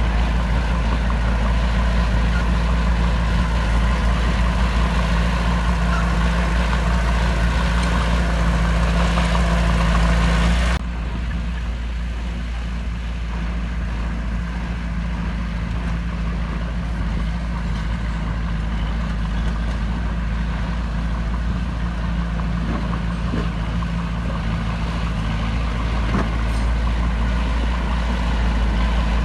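Heavy diesel engine of earthmoving equipment running steadily under load, with a low engine hum throughout. The sound drops abruptly in level and loses its hiss about eleven seconds in, then carries on more quietly.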